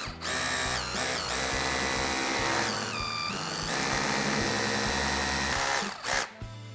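Cordless hammer drill boring into a solid wall, running hard for about six seconds. Twice its pitch sags and recovers as the bit bites, and it stops near the end.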